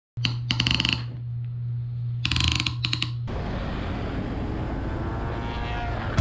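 Socket ratchet wrench clicking in two quick bursts, about half a second and a second long, over a low hum. This gives way to a steady noise about three seconds in.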